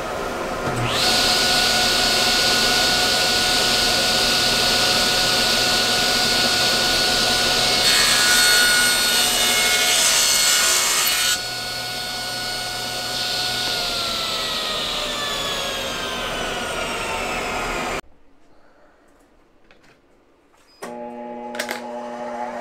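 Table saw switched on and coming up to speed, then ripping a hardwood board, the cut louder and harsher for about three seconds. The saw is then switched off and its motor winds down with falling pitch. Near the end a different shop machine starts and spins up.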